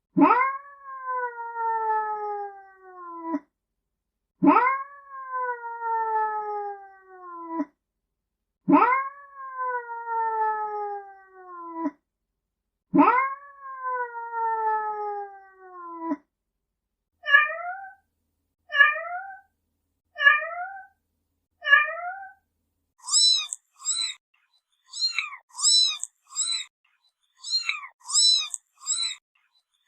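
Domestic cat meows in a sequence: four long drawn-out meows, each jumping up sharply and then falling slowly in pitch, then four short, higher mews about a second and a half apart, then a quick run of very high-pitched squeaky calls, a few a second, near the end.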